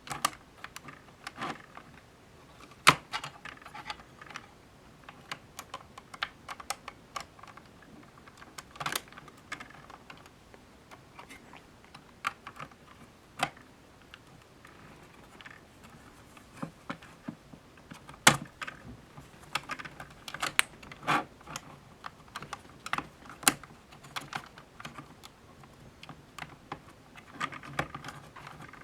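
Irregular small clicks and taps of acrylic case sheets and small hardware being handled and fitted together on a DSO138 oscilloscope kit, a few sharper clacks among them.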